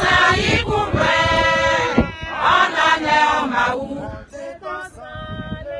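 Harrist church choir singing a chant in long phrases. The singing grows quieter about four seconds in.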